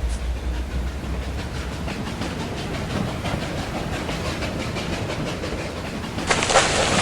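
Hand-made foley of a steam locomotive running: a steady rhythmic clatter over a low rumble that fades after about two seconds, then a loud burst of steam hiss near the end.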